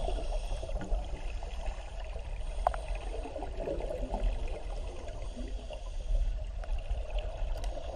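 Underwater sound of a swimming pool heard by a submerged camera: a steady muffled low rumble with the gurgling of scuba divers' exhaled regulator bubbles.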